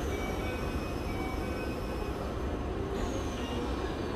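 A Keikyu 1000 series electric train standing at the platform with its doors just shut, its on-board equipment humming steadily, with a faint high tone sliding slowly down in pitch.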